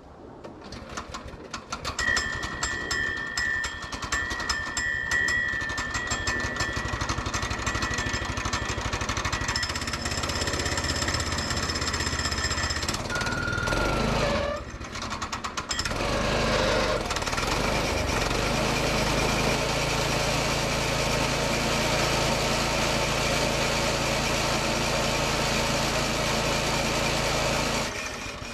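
Small engine of a Woodland Mills portable bandsaw mill cold-started, catching about a second in and running fast and rough with a steady whine. It dips briefly about halfway, then settles into steady running and drops off near the end.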